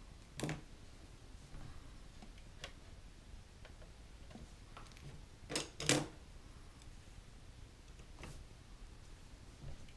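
Faint, scattered clicks and taps of small modelling tools, a paintbrush and a wooden toothpick, being handled against a plastic scale model and the work surface. The loudest is a quick pair of clicks about halfway through.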